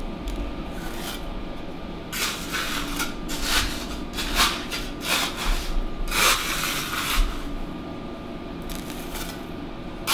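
Hands rubbing and scraping gritty clay on a wooden work table, in a string of short, irregular strokes.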